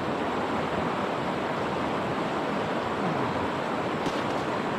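Steady rushing wash of small waves at the shoreline of a bay.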